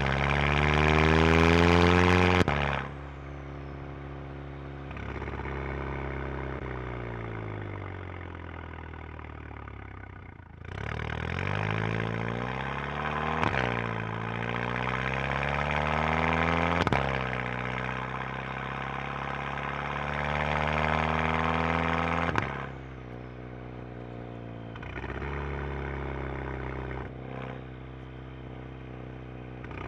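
Exhaust of a 2011 Volkswagen GTI Mk6's turbocharged 2.0-litre four-cylinder, with aftermarket downpipe, resonator delete and gutted stock rear muffler, heard close at the tailpipe as the engine is revved repeatedly. Revs are held high, the throttle is snapped shut and the revs fall back toward idle, several times over. The largest rev-up climbs for several seconds and drops sharply about two-thirds of the way in, followed by a couple of small blips near the end.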